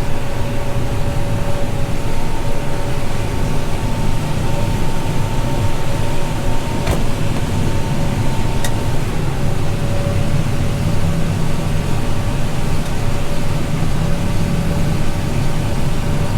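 Farm machine engine running steadily: a loud low drone with two steady whining tones on top, and a couple of faint ticks.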